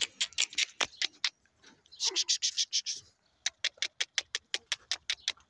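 A rapid run of sharp ticks, about seven or eight a second, broken by a second of scratchy rustling about two seconds in.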